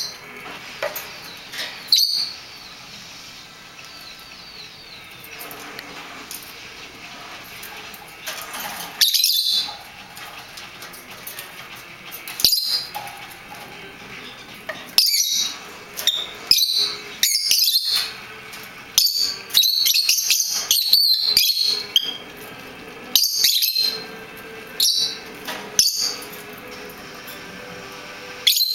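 Caged lovebirds chirping: short, sharp, high calls, a few at first and then in quick runs through the second half.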